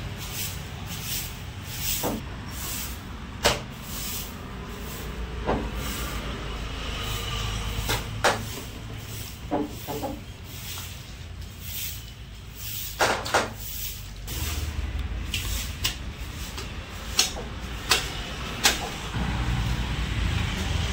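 A butcher's blade and hands working on a hanging goat carcass as it is skinned: irregular sharp knocks and slaps every few seconds, a double one about 13 seconds in and three close together near the end, over a steady low rumble.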